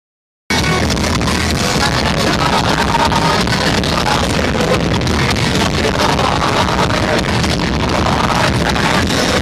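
Loud rock music with a dense, noisy sound, starting suddenly about half a second in.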